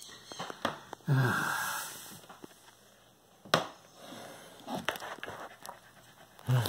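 Handling noise from a wooden beehive frame being moved: light rubbing and clicks, with one sharp knock about halfway through. About a second in, a person lets out a breathy vocal sound lasting about a second.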